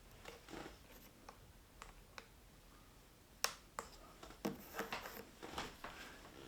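Faint scattered clicks and short scrapes of a hand opening tool worked along the iMac screen's glued edge to cut the adhesive, with one sharper click about halfway through and a cluster of scrapes and clicks after it.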